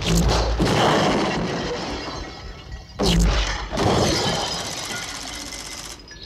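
Movie handgun shots: a heavy blast right at the start and another about three seconds in, each followed by crashing debris and a long fading tail.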